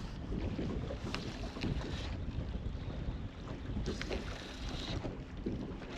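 Wind buffeting the microphone as a steady rumble, with water slapping against a small boat's hull and a few brief scratchy noises about a second in and again around four seconds in.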